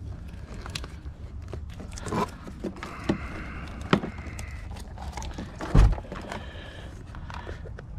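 Hands prying apart an appliance's push-button control panel: scattered clicks and knocks of plastic and metal parts, with one heavy thump about six seconds in.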